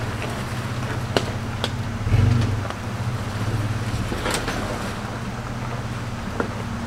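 Off-road 4x4 truck engine running steadily at low revs, with a few sharp clicks and knocks about one, two, four and six seconds in.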